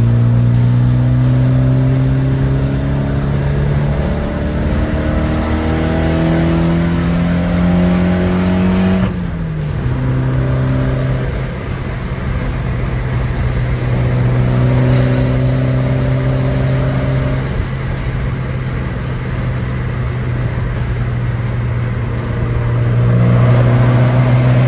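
Car engine heard from inside the cabin on the move. The engine note rises steadily as the car accelerates, then drops sharply about nine seconds in as the gearbox shifts up, and holds steady while cruising, swelling again near the end.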